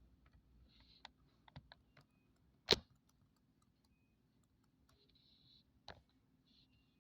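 Scattered key clicks from typing on a small Palm infrared keyboard, irregular and faint, with one sharper, louder click about a third of the way in and another toward the end.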